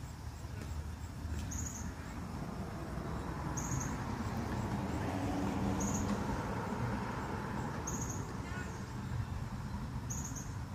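Outdoor wind noise rumbling unevenly on the microphone. A short, high chirp repeats about every two seconds, and a brief faint rising call comes near the end.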